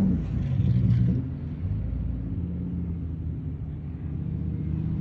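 Ford Excursion's engine running, louder for about the first second, then dropping back to a steady low rumble.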